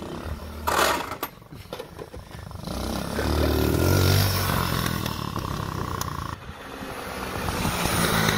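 A 110cc four-stroke pit bike engine on a mobility scooter running hard as the scooter drives up and passes close by, its engine note growing loud about four seconds in and then dropping away. A short clatter about a second in, and a second pass building up again near the end.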